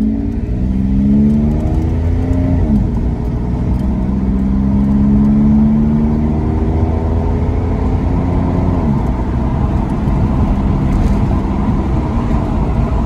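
1997 Chevrolet Camaro's 3.8-litre V6 heard from inside the cabin, accelerating through the gears. Its pitch rises and drops at a shift about two and a half seconds in, then rises again and drops at a second shift near nine seconds, then climbs on. It pulls cleanly, without the hesitation that a failing mass airflow sensor (code P0102) had been causing.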